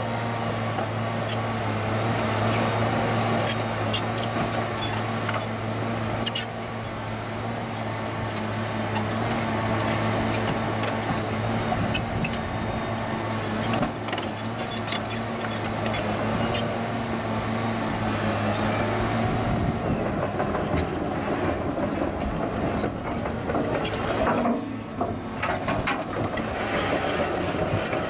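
Caterpillar 963C track loader's diesel engine running under load as it pushes dirt with its bucket, with the steel tracks clanking and rattling. The engine's low note shifts about two-thirds of the way through.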